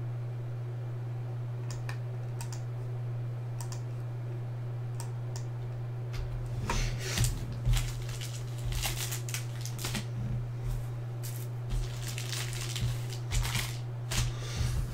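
Computer keyboard typing, a few scattered keystrokes at first, then a busier run of clicking from about six seconds in, over a steady low electrical hum.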